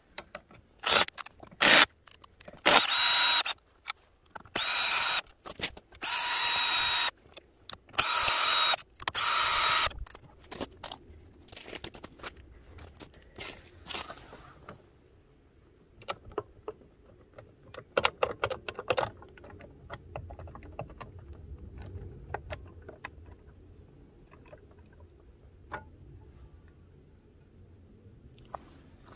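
Cordless drill-driver spinning out the variator cover bolts in about five short runs of a second or so each, all within the first ten seconds. After that come scattered light clicks and knocks of bolts and metal parts as the cover is worked off.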